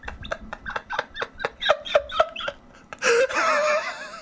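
A person laughing hard in rapid short bursts, rising in pitch and breaking into a loud, high-pitched burst about three seconds in.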